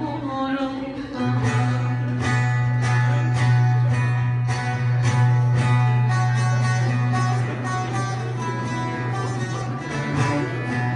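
Bağlama (Turkish long-necked lute) playing an instrumental passage with steady rhythmic strokes, accompanied by a frame drum, the beat setting in about a second in.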